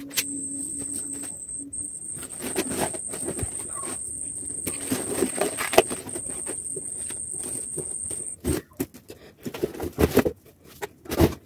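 Cardboard box and plastic-wrapped rubber dumbbells being handled: rustling and scraping, with several knocks near the end as a dumbbell is lifted out of the box. A steady high-pitched whine runs through most of it and stops about eight seconds in.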